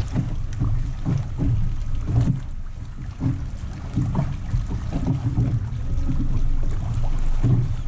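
Wind buffeting the microphone, with choppy water lapping against a bass boat's hull in irregular low thumps.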